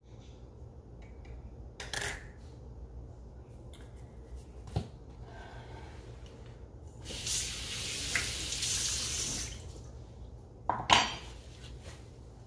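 Kitchen tap running into the sink for about two and a half seconds, from a little past the middle of the stretch. Around it come a few clinks and knocks of things handled at the sink, the loudest a sharp knock near the end.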